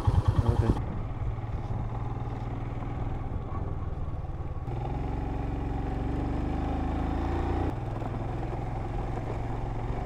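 Royal Enfield Himalayan's single-cylinder engine running on the move. A fast, pulsing thump in the first second gives way to a steady drone, whose note changes about five seconds in and again near eight seconds.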